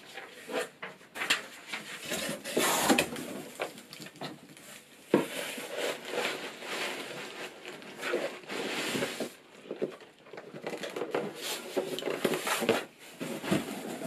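Cardboard shipping box and paper packing being handled and unpacked: irregular rustling, scraping and light knocks, with one sharp knock about five seconds in.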